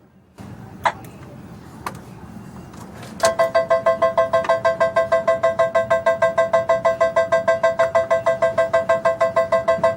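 Electronic casino slot machine. A low hum with a couple of clicks comes first, then about three seconds in a rapid electronic beeping starts, about six or seven beeps a second, the tone that signals the reels spinning.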